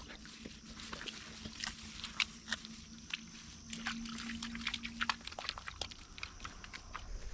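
Irregular crackling and swishing as feet and a gun dog push through grass, with a faint steady low hum for the first five seconds or so.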